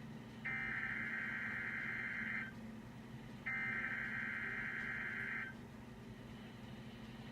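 Emergency Alert System SAME header tones of a required weekly test: two harsh, buzzing digital data bursts, each about two seconds long and a second apart, the last two of the three header repeats, followed by a brief pause.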